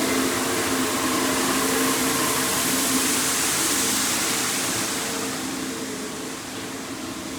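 Grain-handling machinery running: a steady hiss with a low hum underneath, getting quieter about five seconds in.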